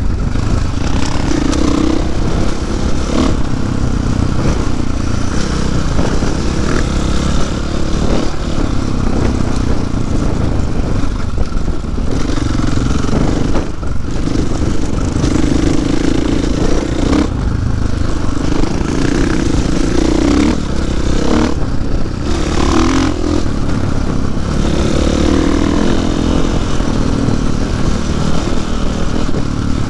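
KTM 500 EXC-F single-cylinder four-stroke dirt bike engine running under way on a trail, rising and falling with the throttle, with a few brief drops in the second half as the rider eases off.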